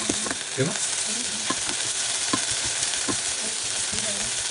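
Shredded banana flower frying and sizzling in a non-stick saucepan while a slotted spoon stirs it, with a steady sizzle and a few light knocks and scrapes of the spoon against the pan.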